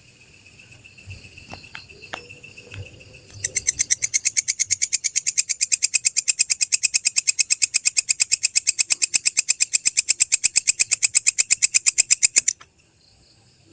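Belalang kecek (walang kecek), a bush cricket, calling. After a few seconds of faint high trilling, it breaks into a loud, rapid, evenly spaced run of high ticking pulses that lasts about nine seconds and cuts off suddenly.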